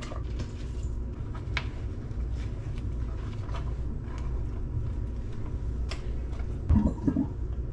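A steady low hum, with scattered light knocks and clicks of kitchen work: a knife and hands on a wooden cutting board while herbs are chopped.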